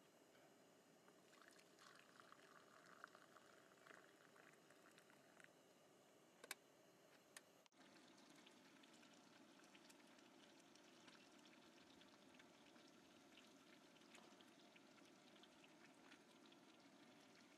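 Near silence, with very faint coffee pouring from a stovetop percolator into a mug early on and a few faint clicks.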